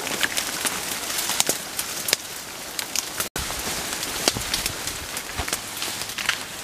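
Several people on foot pushing through dense, dry brush: a steady crackle and rustle of leaves and branches, with many sharp snaps of twigs underfoot and against their gear. It breaks off for an instant about halfway through.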